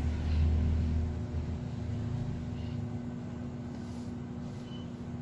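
Steady low hum of room noise, with a deeper rumble that swells in the first second or so and then fades.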